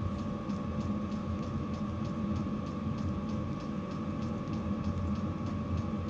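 Diesel air heater running: a steady fan hum with a thin whine and a faint, quick ticking of about three or four ticks a second.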